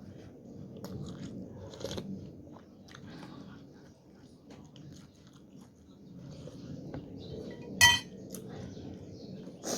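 Close-up eating of Thai suki soup: chewing, with small clicks of cutlery against the bowl. Near the end comes one sharp, ringing clink of a spoon on the dish.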